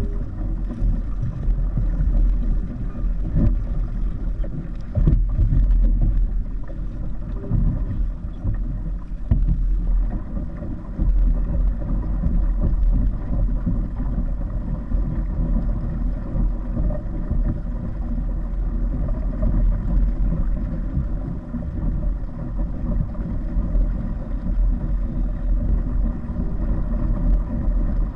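Wind buffeting the microphone over water noise from a kite-towed kayak out on the water: a steady, low rumble that rises and falls.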